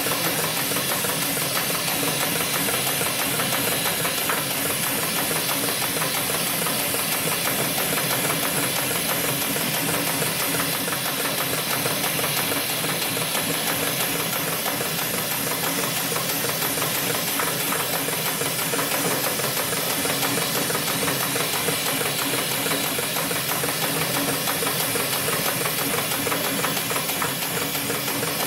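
Industrial sewing machine with an automatic spiral-stitching attachment running steadily, its needle rapidly stitching through a thick stack of cotton cloth for a buffing wheel, with a steady high hiss alongside.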